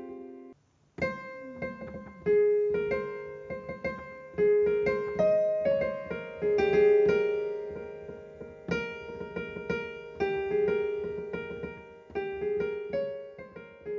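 Outro music: a keyboard melody of struck notes that ring and fade away. It starts about a second in, after a brief silent gap.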